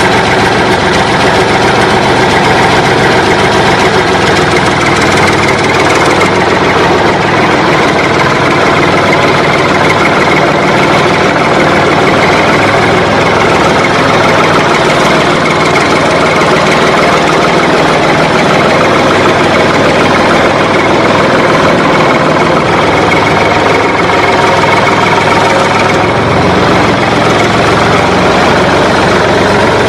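Loud, steady engine idling with no change in pace. It is an engine sound effect laid over footage of a plastic toy dump truck, which has no motor of its own.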